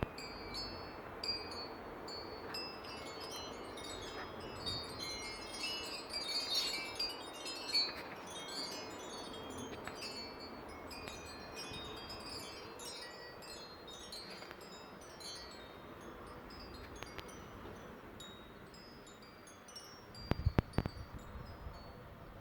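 Chimes tinkling irregularly, with many short high ringing notes, and a brief cluster of knocks about twenty seconds in.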